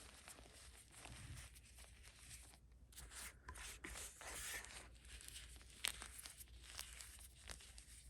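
Gym chalk with cornstarch on top being crushed and pressed by hand, giving faint, irregular crunching and crumbling. There is a sharper crack just before six seconds in.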